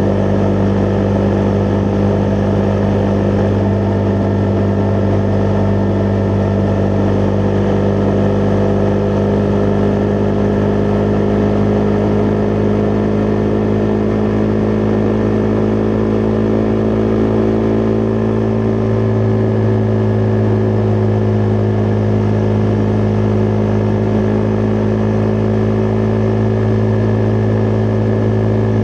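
Husqvarna Vitpilen 401's single-cylinder engine running at a steady speed under way, its pitch holding almost constant with a slight shift about two-thirds of the way through.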